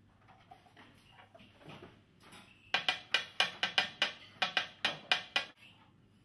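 A metal brush-making cup holding a bundle of brush hair is knocked rapidly on a stone worktop, about fourteen sharp knocks at roughly five a second, to settle and even out the hair tips. Before the knocking there is soft rustling and handling of the hair.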